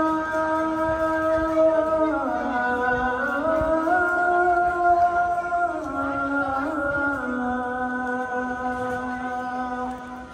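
Islamic call to prayer (Isha adhan): a man's voice chanting long, held notes that glide slowly up and down.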